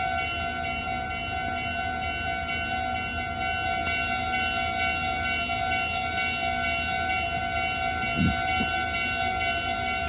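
Meitetsu level crossing alarm sounding with its steady electronic tone while the crossing is closed for a train. A short low thump about eight seconds in.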